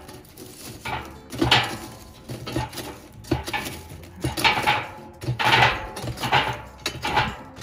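Metal clanking and scraping in a barrel smoker: irregular sharp clanks with a short ring, about a dozen, as things are shifted around inside it.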